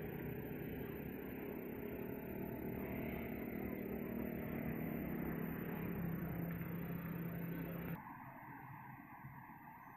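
An engine running steadily, its pitch dropping slightly about six seconds in; it cuts off abruptly near the end, leaving a fainter background hum.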